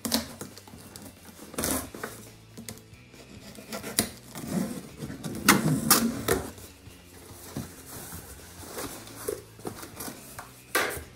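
Box cutter slitting the packing tape on a cardboard box, with the tape ripping and the cardboard scraping in a run of sharp, irregular sounds, loudest about halfway through; near the end the flaps are pulled open and the kraft packing paper rustles.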